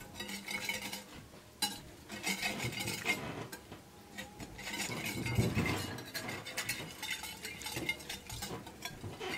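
Metal wire whisk stirring a thin, watery flaxseed mixture in a ceramic dish: irregular swishing and scraping, with light clinks of the wires against the dish.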